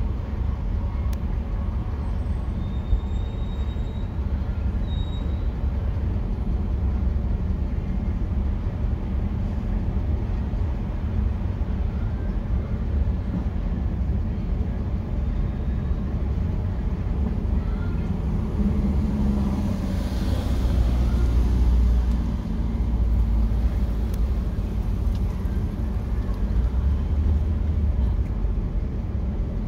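Steady low rumble of road traffic and engine noise heard from inside a parked car, with a louder vehicle passing about twenty seconds in.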